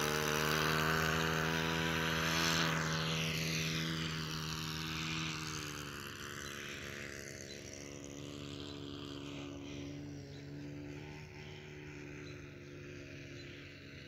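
Four-stroke model engine of an RC Sea Stick floatplane running at steady high throttle just after takeoff, a droning buzz with its propeller. Its pitch drops about three to five seconds in, and the sound then fades steadily as the plane flies away.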